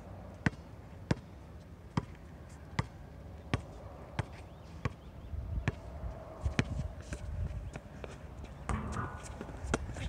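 A basketball being dribbled on a hard outdoor court: a string of sharp single bounces, unevenly spaced at roughly one a second.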